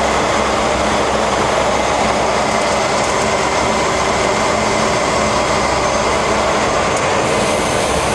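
Cessna Grand Caravan's single Pratt & Whitney PT6A turboprop engine and propeller, heard from inside the cabin as a loud, steady drone with a thin high whine, while the aircraft rolls along the ground after landing.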